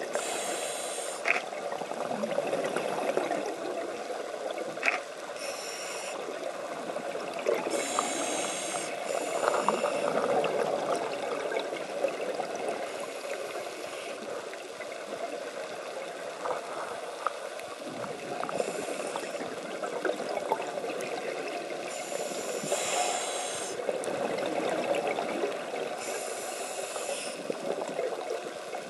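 Scuba diver breathing through a regulator, heard underwater: a steady bubbling rumble, broken every few seconds by a short hiss of inhalation through the demand valve.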